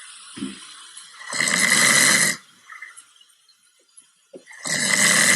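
Two loud, rasping snores, each about a second long, the second starting about three seconds after the first.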